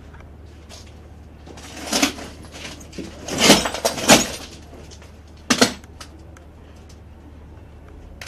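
Scattered sharp clicks and short clattering knocks, the loudest about two, three and a half, four and five and a half seconds in, over a steady low hum.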